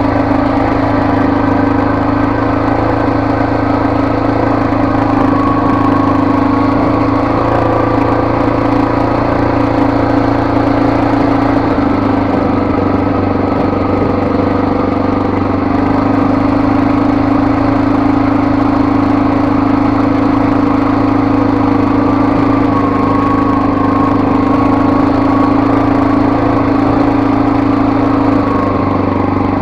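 Engine of a small off-road vehicle running steadily at low speed on a rough trail, its pitch shifting slightly a couple of times.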